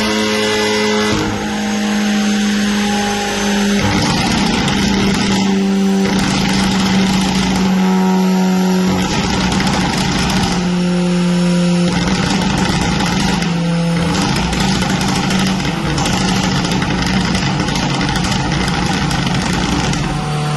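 Fiat Abarth's stage 2 remapped, decatted 1.4-litre turbocharged four-cylinder engine running and revving. Its pitch holds steady, then drops in steps every second or two.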